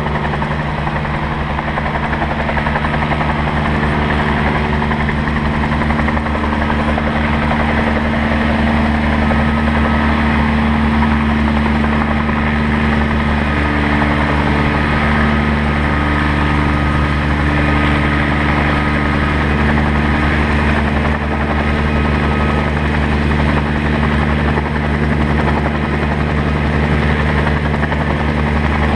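Bell 47 G2 helicopter's six-cylinder Lycoming piston engine and rotor running steadily on the ground, an even drone at a constant pitch.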